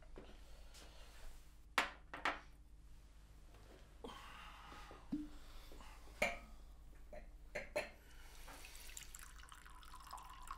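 Liquor poured from a glass decanter into a cut-crystal glass, trickling in the last couple of seconds. Before it come a few sharp clicks and knocks, the loudest two about two seconds in.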